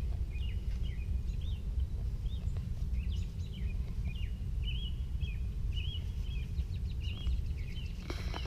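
Small songbirds chirping and trilling in short repeated phrases over a steady low rumble. A rustling noise starts just before the end.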